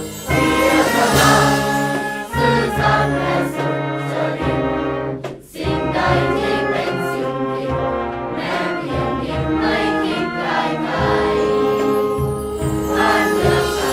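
Music: a choir singing a song over orchestral backing, with a brief break about five and a half seconds in.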